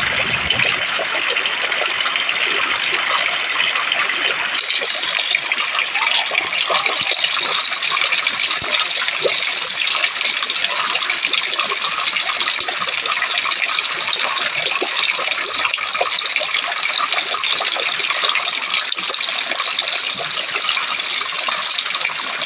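Heavy rain pouring down steadily, a dense patter of drops splashing on wet ground and surfaces.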